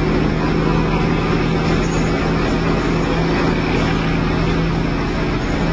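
Competition car-audio subwoofer system playing loud, sustained bass, heard as a steady drone that does not let up.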